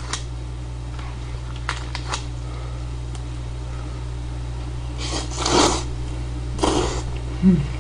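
A man slurping buckwheat noodles in two long pulls, about five and six and a half seconds in, after a few light clicks of metal chopsticks, over a steady low hum.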